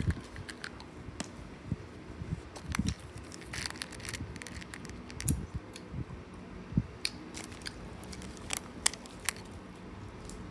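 A person chewing Skittles candy close to the microphone: irregular soft clicks and low mouth thumps.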